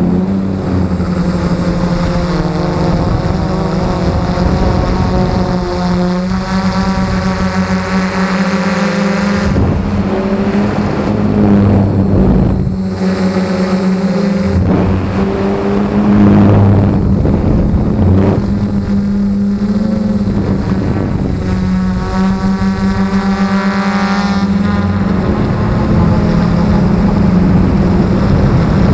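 S-500 quadcopter's motors and propellers running in flight, heard close up from the onboard camera: a loud steady buzz whose pitch shifts up and down as the throttle changes.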